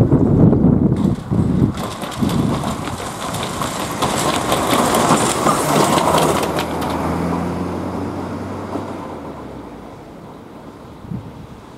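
A car driving over the railway level crossing close by: tyre noise rising over the crossing panels and rails a couple of seconds in, then its engine and tyres fading away. Wind buffets the microphone at the start.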